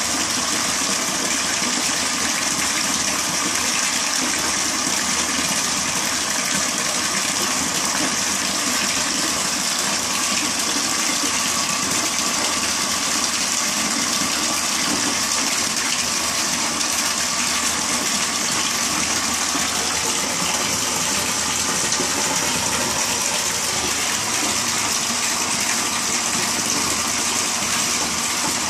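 Water running steadily into a tub, an even, unbroken rush.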